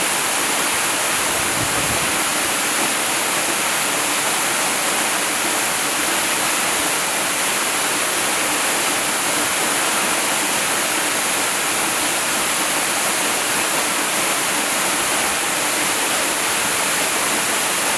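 Waterfall pouring: a steady, unbroken rush of falling water, heavy in hiss.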